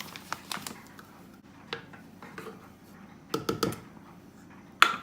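Kitchen utensil handling: a measuring cup and spoon clicking and scraping against containers while half a cup of coconut flour is measured out, with a short run of scrapes about three and a half seconds in and a sharp clink near the end.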